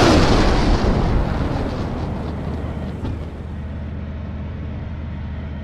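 Rocket launch from a multiple rocket launcher: the loud roar of the launch fades over about three seconds into a steady low rumble.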